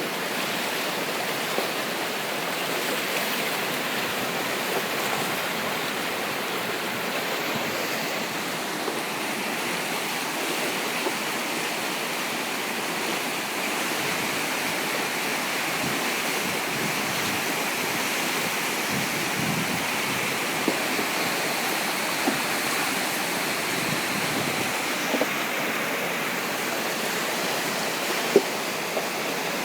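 Floodwater rushing past in a swollen stream: a steady, unbroken rush of water, with a few faint clicks and a sharper tick near the end.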